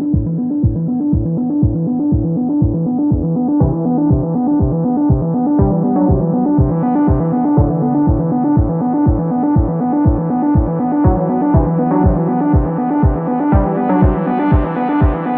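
Electronic background music: a steady kick-drum beat under synthesizer and keyboard chords, growing brighter toward the end.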